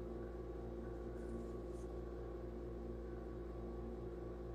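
Steady low room hum made of several held tones, with a faint regular pulsing underneath, like a running appliance or ventilation.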